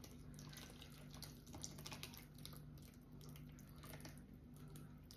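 Very faint pouring and dripping as a thick mixture of cream of chicken soup and chicken stock runs from a measuring jug onto a casserole in a baking dish, with small scattered ticks. A steady low hum sits underneath.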